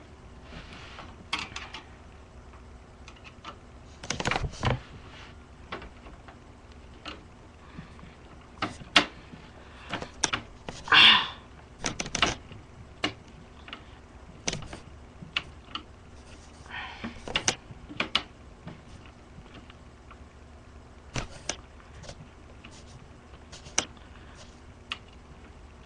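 Irregular clicks, taps and small scrapes of a screwdriver turning screws into a desktop computer's CPU fan mount, with a short rasping noise about eleven seconds in.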